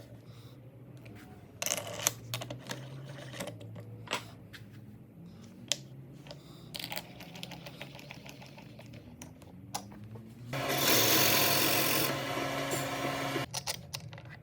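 Workshop handling sounds: scattered clicks and knocks of wood and tools being handled. About ten and a half seconds in comes a loud rushing, whirring noise lasting about three seconds, loudest in its first second and a half.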